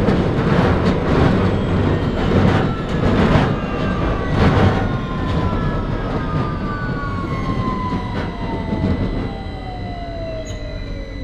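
Victoria line 2009 Stock train slowing down: its traction motors whine in several tones that glide steadily downward in pitch under the wheel and rail rumble, which eases off near the end as the train brakes for a station.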